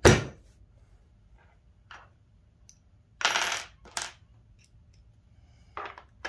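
Small metal parts clinking and clattering as a router lift's metal plate is set into the table and bolted down: a sharp knock at the start, a few light clicks, and a short rattle about three seconds in.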